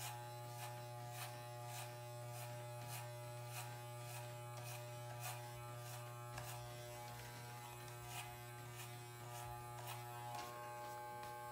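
Corded Wahl electric hair clippers, fitted with a number one guard, running with a steady buzz as they are run over the side of the head, with faint irregular ticks over the buzz.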